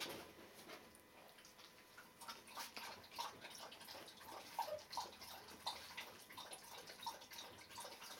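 Three-week-old Border Collie puppy lapping from a stainless steel bowl: faint, irregular wet clicks and drips.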